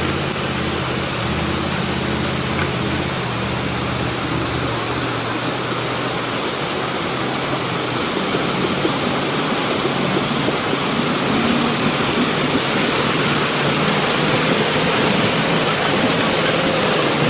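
Fast, muddy river water rushing steadily, growing a little louder about halfway through. A truck's engine runs low underneath for the first few seconds.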